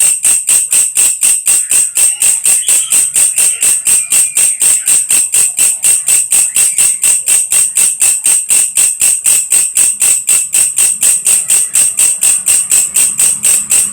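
Belalang kecek (walang kerik) insect calling: a loud, high-pitched, even 'krek-krek' rasp of about five pulses a second, kept up without a break.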